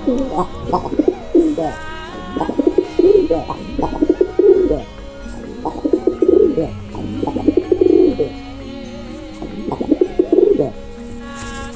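A flock of domestic pigeons cooing in several bouts of low, warbling calls, over background music.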